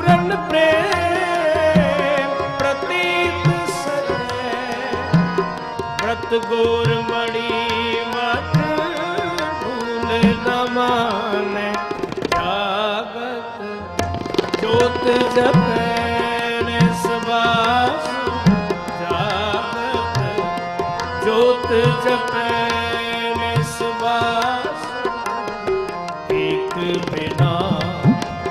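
Sikh kirtan music: harmoniums playing the melody over a steady tabla rhythm.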